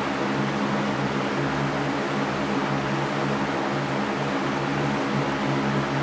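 A fan running steadily: an even rush of air with a low, constant hum underneath.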